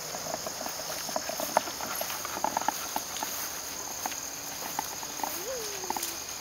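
Insects chirring steadily, with soft scattered footsteps and small ticks on grass.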